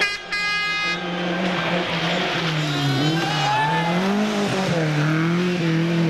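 Rally car engine running hard, its note dipping and then rising again with throttle and gear changes. A brief high-pitched squeal comes in the first second.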